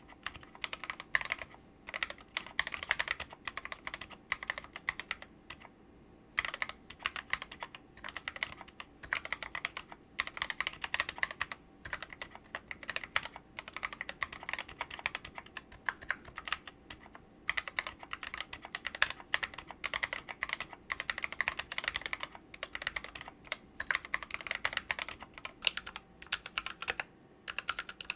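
Typing on a mechanical keyboard with Kailh Cream switches and SA-profile keycaps: fast, continuous key clacks in runs of several seconds, with brief pauses between runs.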